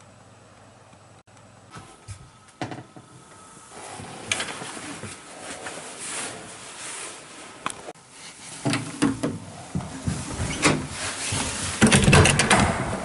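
Clothing rustling and handheld-camera handling noise, with scattered clicks and knocks that grow louder in the second half. A cluster of clatter near the end as a hand grabs an interior door's handle.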